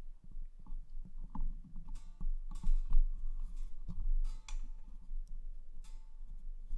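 Scattered small clicks and short rustling noises from off camera, over a steady low electrical hum.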